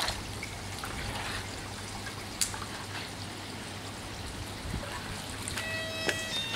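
Floodwater trickling and running steadily, with scattered small clicks and splashes. Near the end a short pitched tone sounds for under a second.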